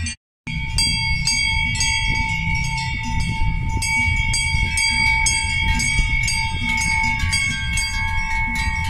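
Large cowbells on grazing cows clanking and ringing, many irregular strikes overlapping over a steady ringing tone, after a brief cut-out at the start.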